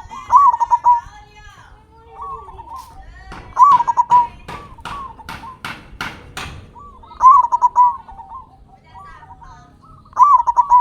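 Zebra dove (perkutut) cooing: short, loud, trilled coo phrases repeated every second or few. A run of about eight sharp clicks, roughly three a second, comes in the middle.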